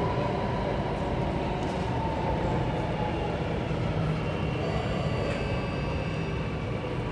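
Interior of an Alstom Metropolis C830C metro train pulling into a station. The steady rumble of the running train carries a faint whine that sinks slowly in pitch as it slows, and a few thin high tones come in about two thirds of the way through.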